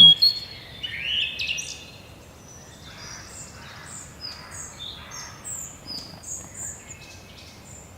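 Forest birds singing and calling over a faint background hiss: many short, high chirps and whistles from several birds, with one louder call about a second in.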